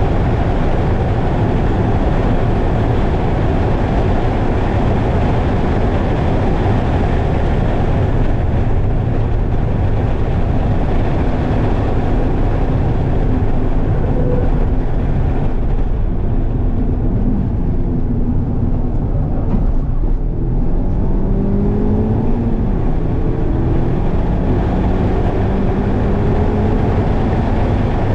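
Mazda MX-5's four-cylinder engine at speed, heard from inside the cabin with wind and road noise. The noise eases for a few seconds past the middle as the car slows for a corner, then the engine note climbs steadily under hard acceleration near the end.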